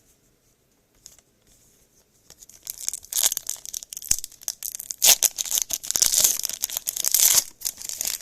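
A trading card pack wrapper being torn open and crinkled by hand. After a quiet start, the tearing and crackling builds from about two and a half seconds in and dies away shortly before the end.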